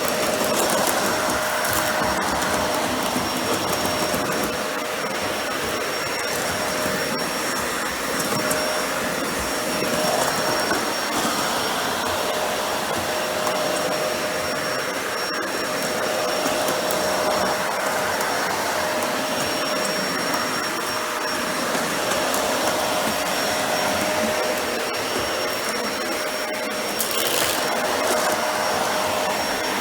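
Dyson Ball Animal 2 (UP20) upright vacuum running on an area rug, its 10-amp suction motor giving a steady rush of air with a constant whine on top. Scattered small ticks come through as it picks up debris from the rug.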